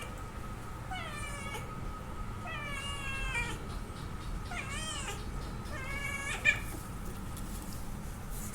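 Two cats yowling at each other in a fight standoff: about five long, wavering caterwauls, one after another. There is a single sharp knock about six and a half seconds in, and a faint steady high-pitched hum underneath.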